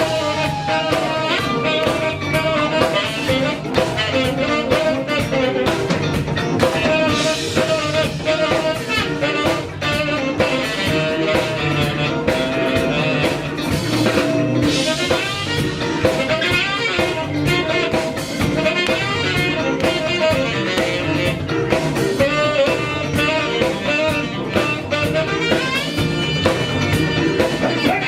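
A live soul and R&B band plays an instrumental passage, with a drum kit keeping a steady beat under a horn line.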